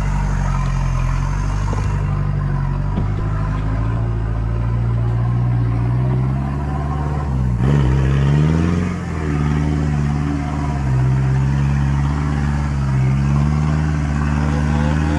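Four-wheel-drive's engine running at low revs while crawling off-road, revving up and back down about halfway through, then its pitch rises and falls gently with the throttle.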